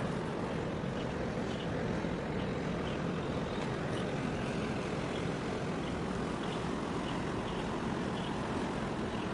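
Steady low rumble of distant engines with harbour wind and water noise, and faint short high chirps now and then.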